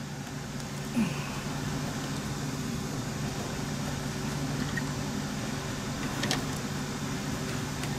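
A steady machine hum, with a short tap of a screwdriver against the carburetor about a second in and a faint click near six seconds.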